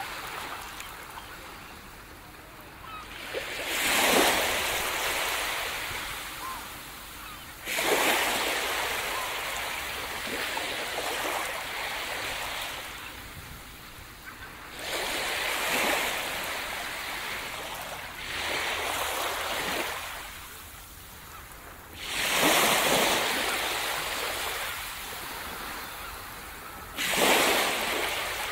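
Small waves breaking and washing up a sandy beach: six surges of surf, each rising quickly and then hissing away over a few seconds, over a steady wash of water.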